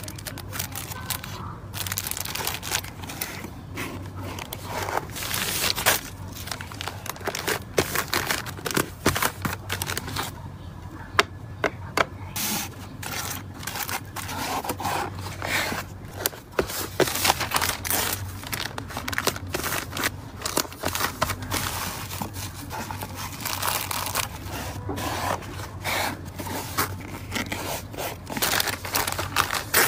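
Hands packing a small cardboard mailer box: crinkling of cellophane-wrapped sticker packs and bubble wrap, and cardboard flaps folding and scraping, with many small taps and clicks throughout.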